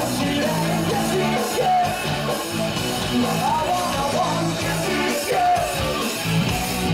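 Live band music through PA speakers: a male vocalist singing into a microphone over electric guitar and a steady bass line.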